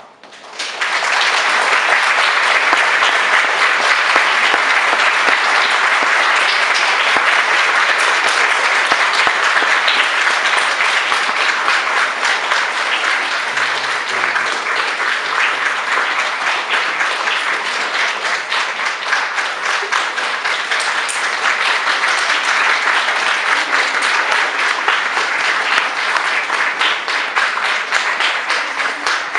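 Audience applauding: many hands clapping at once, starting suddenly about half a second in and holding steady.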